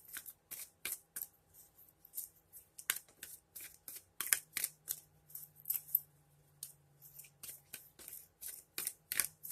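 A deck of oracle cards being shuffled by hand: a quick, irregular run of short crisp card strokes, several a second.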